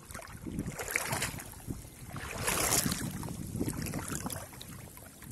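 Shallow water splashing and sloshing around hands and a wading body, with a louder splash about halfway through. Wind rumbles on the microphone throughout.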